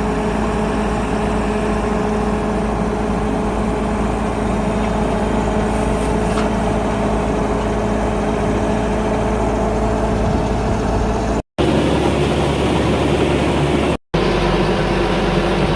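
Engine of a 102 hp rice combine harvester running steadily, a continuous heavy hum. The sound cuts out twice, briefly, near the end.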